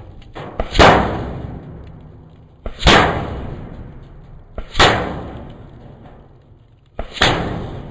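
Four shots from a Western Rattler .357 big-bore air rifle, about two seconds apart. Each is a short click followed a quarter second later by a louder crack that dies away slowly.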